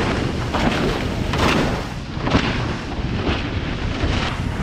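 Powerboat running fast through chop: a steady low rumble of wind and motor with repeated thuds and splashes, about one to two a second, as the hull slams into the waves.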